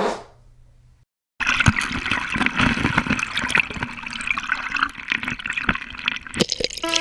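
Waterfall water rushing and splashing, a steady spray-like noise that starts abruptly about a second and a half in after a brief silence.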